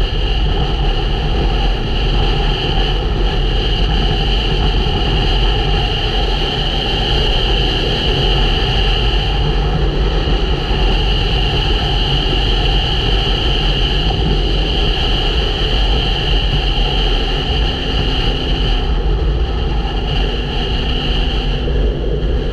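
Motorcycle riding along a hard-packed gravel road: a steady, loud rush of wind on the microphone mixed with engine and tyre noise, unbroken throughout.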